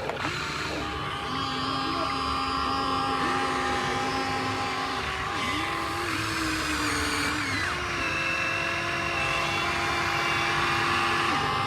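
Huina 1593 RC excavator's small electric gear motors whining as it works. Several tones start, stop and change pitch every second or two as different functions of the arm, bucket or tracks are switched in and out.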